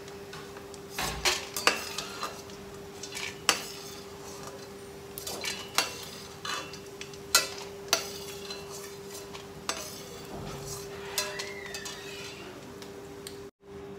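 A metal spoon clinking and scraping against a kadhai at irregular intervals as fried rice snacks are lifted out of the hot oil, which sizzles underneath. A steady low hum runs throughout.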